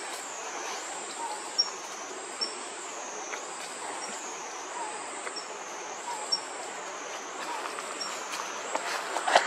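Forest ambience: a high insect drone wavering up and down in pitch about every second and a half, with short bird chirps repeating about once a second. Near the end, louder rustling and cracking of branches sets in.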